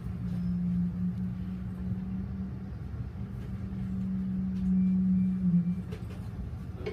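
Commuter rail train heard from inside a passenger coach as it slows into a station: a steady low rumble with a steady hum that stops about six seconds in as the train comes to a halt.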